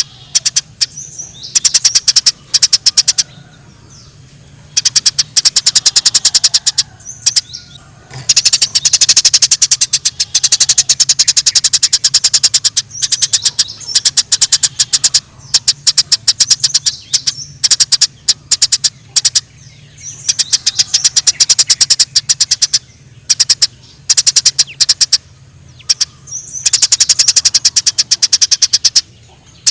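Eurasian tree sparrows chattering in long bursts of very rapid, high chirps with short pauses between them: the agitated calls of sparrows fighting. A faint low hum runs underneath.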